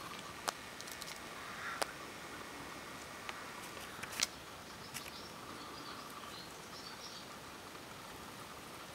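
Faint outdoor ambience: a steady background hiss, a few sharp light clicks and taps, and faint bird chirps in the second half.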